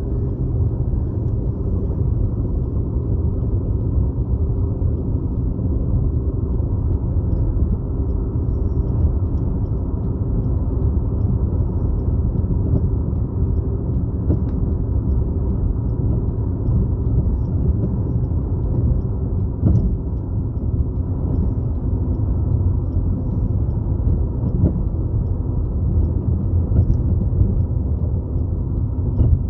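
Steady low rumble of a car driving at road speed, tyre and engine noise without a break.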